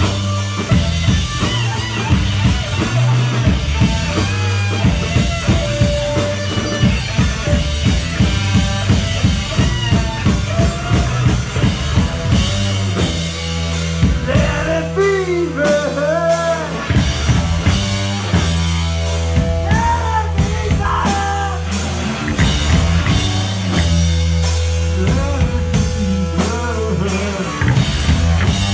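Live rock band playing loud: electric guitar, bass guitar and drum kit. Busy drumming fills the first half, and from about halfway a lead line of sliding, bending notes rides over a steady bass.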